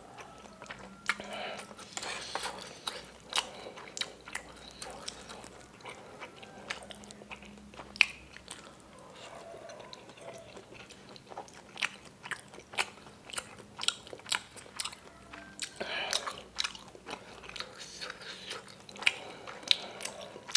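Close-miked chewing of bakso meatballs, with wet smacking and many sharp mouth clicks. One sharper click about eight seconds in.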